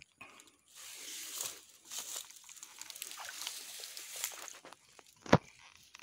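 Footsteps crunching and rustling through dry grass and brush, with a single sharp click about five seconds in.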